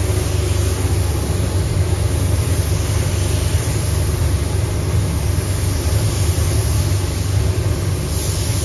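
Steady low rumble with an airy hiss over it, from an automotive paint booth's air system and a compressed-air gravity-feed spray gun spraying paint. The hiss brightens slightly near the end.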